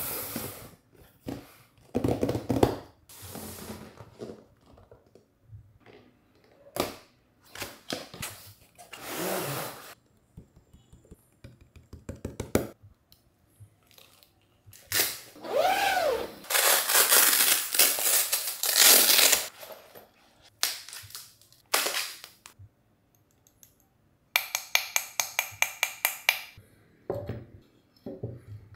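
Unboxing handling noises: a nylon carry bag and its packaging rustling, sliding and knocking on a wooden desk, with a brief squeak partway through. About 24 seconds in, a zipper is pulled in a fast, even run of clicks lasting about two seconds.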